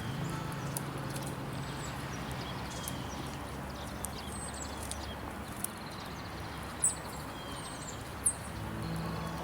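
Small birds calling in woodland: a few short, sharp high chirps, two of them louder near the end, and some lower falling notes, over a steady outdoor hiss.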